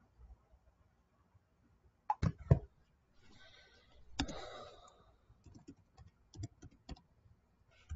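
Scattered sharp clicks and knocks close to the microphone, the loudest a pair about two seconds in, with a brief rustling noise around four seconds in and a few lighter clicks after it.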